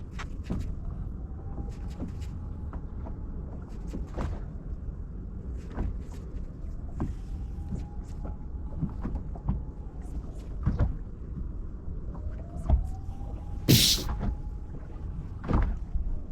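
Strong wind rumbling on the microphone aboard a small boat, with irregular knocks and slaps of waves and gear against the hull and a sharp crack near the end. A faint whine rises and then holds, three times.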